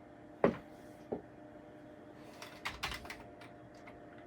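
Typing on a Commodore 64 keyboard: two sharp key clicks about half a second and a second in, then a quick run of keystrokes in the second half.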